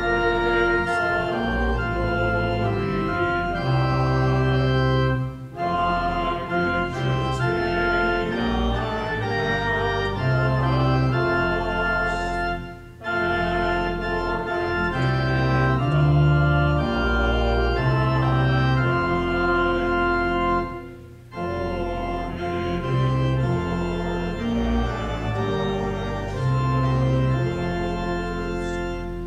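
Organ playing a hymn tune in held, changing chords, pausing briefly between phrases three times.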